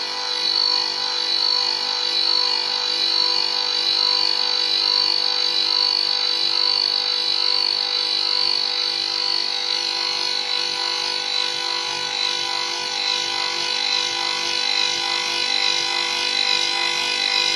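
Thread-cutting machine for plastic pipe running: its electric motors and spindles give a steady whine with a strong high tone, unchanging throughout.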